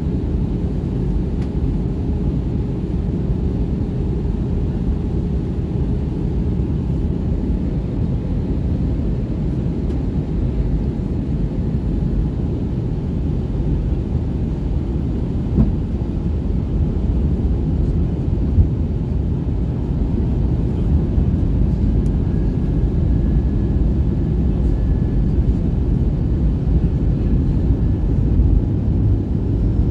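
Steady rumble of engine and airflow noise heard inside an Airbus A320 cabin in flight on the approach to landing. It grows slightly louder in the second half, with two faint clicks about three seconds apart midway.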